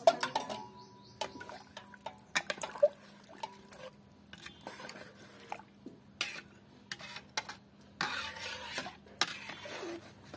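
Metal ladle clinking and scraping against an aluminium cooking pot while stirring a thin, liquid beef curry. There is a sharp clank at the start, then irregular knocks and scrapes.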